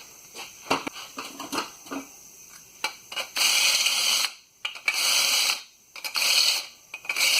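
A few metal clicks and knocks, then four short bursts of a drill running a step (uni) bit through the U-bolt bracket holes to clear out rust and dirt.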